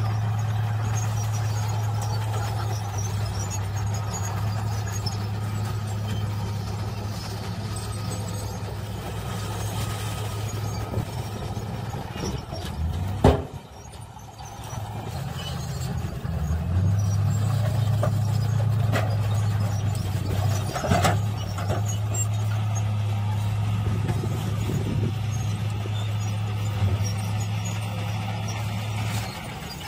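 Diesel dump truck engines running steadily with a low hum while a tipper bed is raised to unload soil. About halfway through there is a sharp knock and the hum drops briefly, then the engine picks up again, with a few short knocks or hisses later on.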